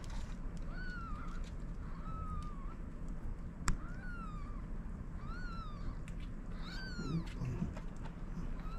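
Newborn kittens mewing: about five short, high-pitched calls, each rising and falling, spaced a second or two apart. A single sharp click comes a little over halfway through.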